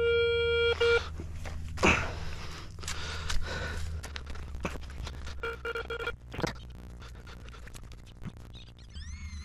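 Metal detector sounding its steady signal tone for about the first second, then a spade scraping and chopping into field soil with several sharp strokes, and the detector tone sounding again briefly midway.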